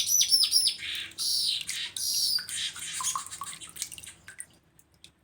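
Streaked weaver (manyar jambul) singing: a quick run of high, dropping whistled notes, then buzzy chattering phrases that trail off into scattered ticks about four seconds in.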